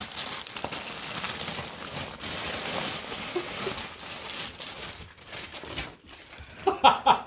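Clear plastic packaging bag crinkling and rustling as a fleece blanket is pulled out of it by hand.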